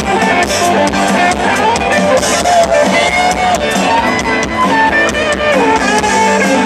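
Rock band playing live and loud: an electric guitar plays a lead line over drums and bass, heard from within the audience.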